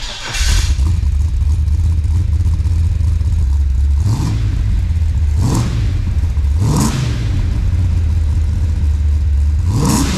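Holden VR Clubsport V8 fires up through its existing twin exhaust with Hurricane mufflers and a rear muffler. It settles into a steady low idle and is blipped four times, short revs a second or so apart near the middle and once near the end. It is pretty loud, especially on throttle, but the owners want it deeper at idle.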